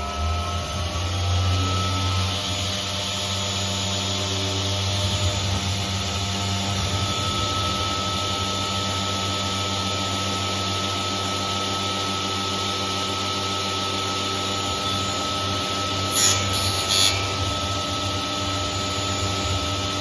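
Three-axis CNC router running: a steady spindle whine over the noise of the cutter working, with two brief, louder bursts about three quarters of the way through.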